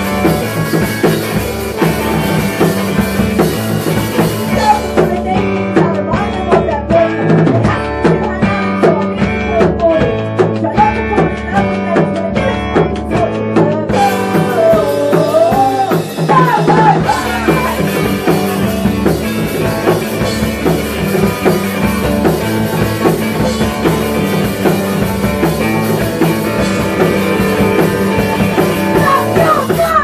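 Live rock band playing loud: electric guitars over a busy drum kit. The song cuts off at the very end.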